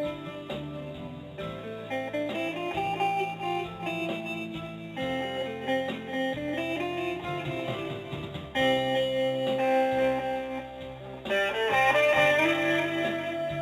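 Guitar music: a melody of plucked notes over held lower notes, getting louder about eight and a half seconds in.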